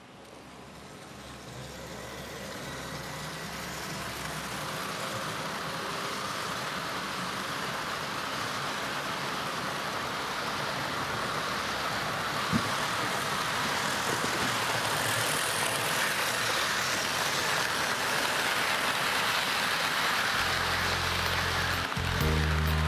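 Steady rushing noise of model trains running on track, building up over the first few seconds, with a single click about twelve seconds in. Music comes back in near the end.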